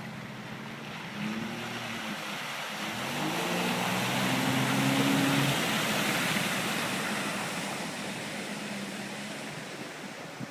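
A motor vehicle's engine revving up and then running steadily. A rush of noise swells to its loudest about halfway through and then fades, as the vehicle goes by.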